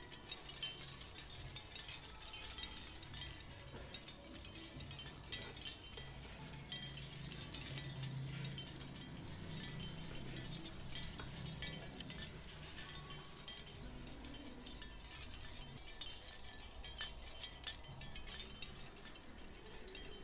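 Faint, frequent small clicks and ticks of fingers handling a toy finger bike's small plastic and metal parts as a handlebar grip is fitted and a thin brake cable threaded.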